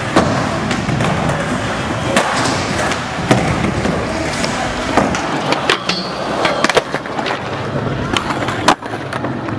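Skateboard wheels rolling over concrete, broken by a series of sharp wooden clacks from the board's tail popping and landing.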